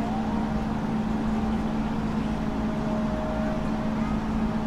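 Steady machine hum with a constant low tone, unchanging in level.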